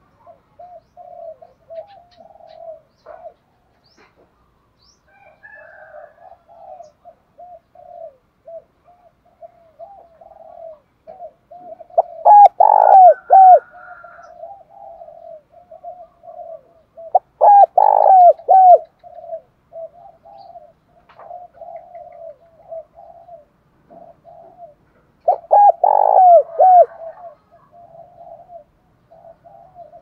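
Spotted dove cooing its challenge call: a run of soft, low coos throughout, broken three times by loud coo phrases.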